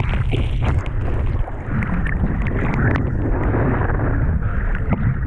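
Strong wind buffeting the microphone with a heavy low rumble, over choppy sea water splashing and sloshing, with many short sharp splashes.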